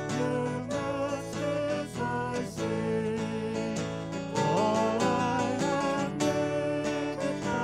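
A hymn sung to strummed acoustic guitar accompaniment, a singing voice wavering over the chords.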